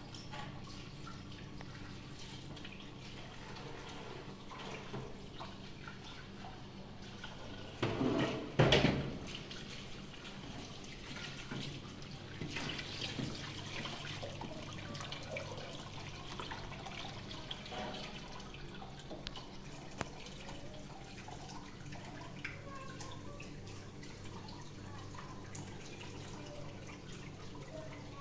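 Water running and dripping, with small clinks and knocks over a steady low hum, and a louder burst of water about eight seconds in.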